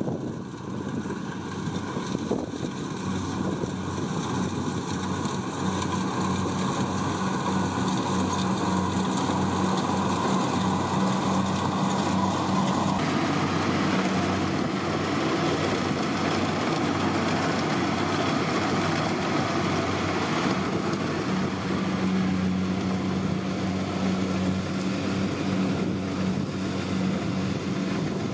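Kubota DC70 Plus rice combine harvester working, its diesel engine and threshing machinery running steadily under load in a constant drone. About halfway through the sound turns brighter and noisier.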